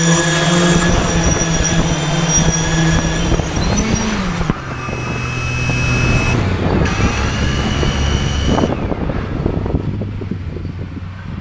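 A Y6 hexacopter's six brushless motors and propellers humming steadily in a low hover. The pitch drops about four and a half seconds in as the throttle changes, and the sound eases near the end.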